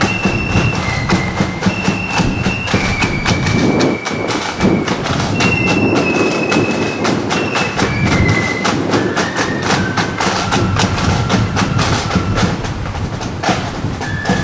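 Marching flute band playing a tune: a melody of flutes in held notes over rapid snare drum strokes and bass drum beats.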